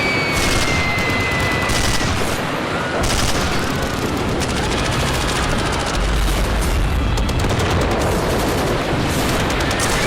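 Sound-effect track of dense machine-gun fire and volleys of gunshots, packed together without a break. A long high wail slides slightly down in pitch over the first two seconds, and a deep boom comes about six seconds in.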